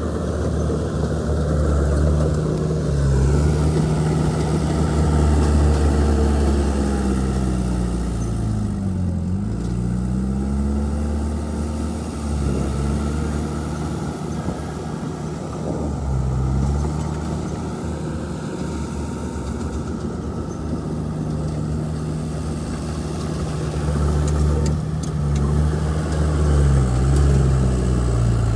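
Heavy diesel engine of earthmoving machinery running under load, its note sagging and recovering several times as it works.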